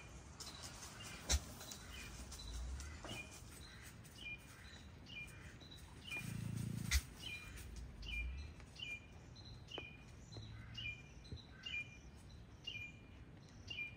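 A Patagonian mara chewing romaine lettuce from a bowl, with a few soft crunches. A small bird chirps faintly in the background, short high chirps about twice a second.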